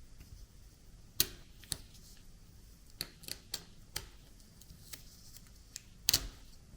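Handling of a 3D-printed plastic washi tape cutter and its tape: a scattered series of sharp clicks and taps, the loudest about a second in and a double one near the end.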